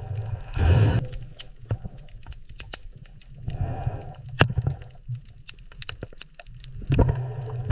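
Underwater clicking at a cleaning station where small shrimp pick at a giant grouper's teeth: many sharp, irregular clicks over a low steady hum. A louder rush of noise swells up about a second in, again around four seconds in, and near the end.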